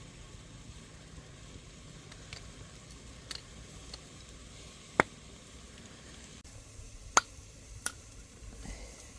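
Food frying in a pan with a steady low sizzle, broken by a few sharp clinks of a utensil against the pan, three of them loud about halfway through and near the end.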